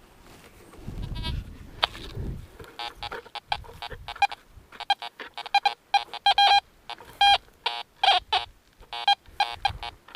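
Fisher F19 metal detector giving a run of short, repeated pitched beeps as a small buckle is swept over its search coil off the ground. On the ground it gave no signal on the same piece. A couple of seconds of handling rumble come before the beeps start.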